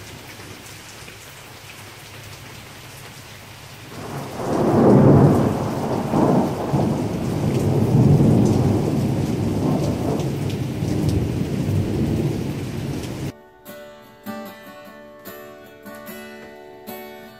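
Steady rain falling on a lawn and trees, with a long rolling rumble of thunder that swells about four seconds in and dies away over several seconds. Near the end it gives way to an acoustic guitar being strummed.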